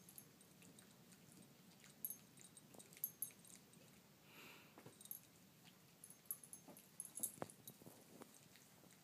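A chihuahua licking a pharaoh hound's wounded leg, faintly: scattered wet clicks and smacks of the tongue in short clusters, the busiest and loudest a little after the middle.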